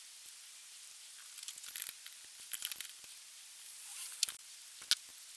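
Scattered light clicks and taps of small metal parts being handled during hand assembly, over a faint steady hiss. There are a few short clusters of ticks in the first half and two sharper clicks near the end.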